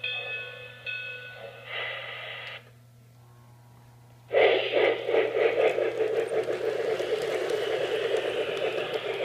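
Lionel RailSounds tender playing steam-locomotive sound effects through its small speaker: short steam-whistle blasts, then a brief hiss. After a pause, steady rhythmic steam chuffing starts suddenly about four seconds in and runs on loudly.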